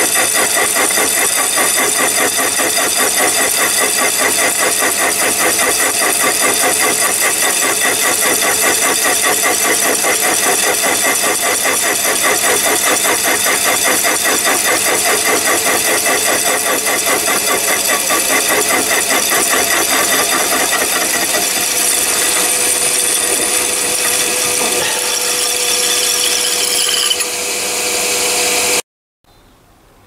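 Chinese mini lathe turning a slitting saw in its chuck, sawing a slot into a bar clamped in the tool holder: a steady metal-cutting noise with many ringing tones and a fast, even chatter from the saw teeth. It eases near the end and then cuts off abruptly.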